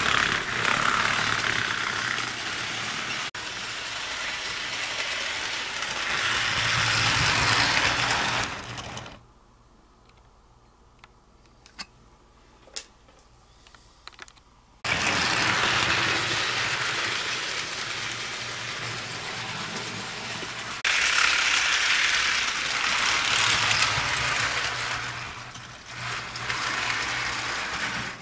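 HO scale model steam locomotive and its train running along the track, giving a steady mechanical running noise that swells and fades as it passes. About nine seconds in, the sound drops away for some six seconds, leaving only a few small clicks, then resumes.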